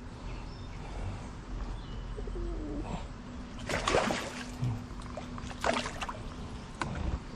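A hooked largemouth bass thrashing and splashing at the water's surface as it is brought to a kayak: two splashy bursts, about four seconds in and again near six seconds.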